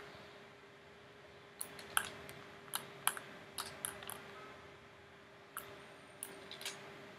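Scattered sharp clicks of a computer mouse and keyboard, coming in irregular clusters, over a faint steady hum.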